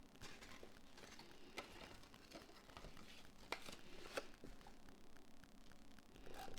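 Faint handling of cardstock paper: soft rustling with a few light taps and clicks, the clearest about a second and a half, three and a half and four seconds in.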